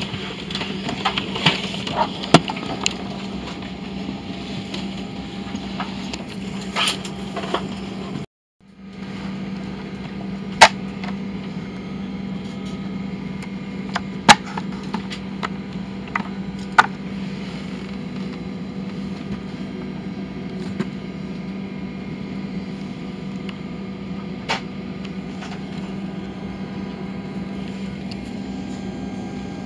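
Steady airliner cabin hum at the gate: air-conditioning airflow with a low steady tone, broken by a few sharp clicks and knocks, the loudest about 10 and 14 seconds in. The sound cuts out for half a second about 8 seconds in.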